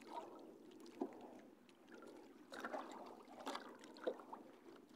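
Faint water lapping against the hull of a small outrigger paddle boat, with a few soft slaps.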